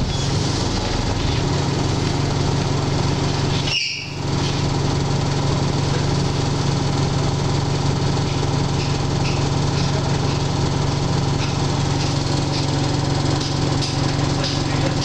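Alexander Dennis Enviro 300 single-deck bus heard from inside the saloon, its engine running with a steady low hum. About four seconds in the engine sound briefly drops away and a short high-pitched screech sounds, with a few faint squeaks later.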